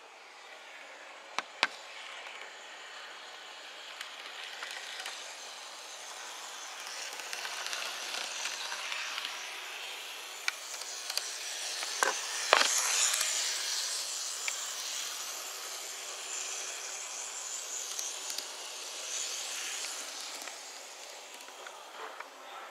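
N-gauge model tram running along the track: a steady whirring hiss of its small motor and wheels that grows louder, peaks about halfway through with a few sharp clicks as it passes close, and then fades.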